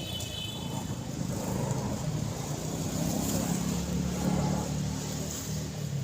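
A motor vehicle's engine running, a low rumble that swells toward the middle and eases off near the end.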